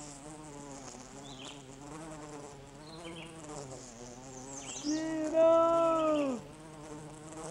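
Bumblebee in flight, buzzing steadily. Past the middle the buzz turns louder and higher for about a second and a half, then drops in pitch as it fades.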